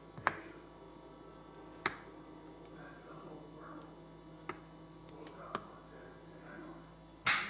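A handful of sharp clicks and taps, a second or two apart, over a faint steady hum; a louder, longer one comes near the end.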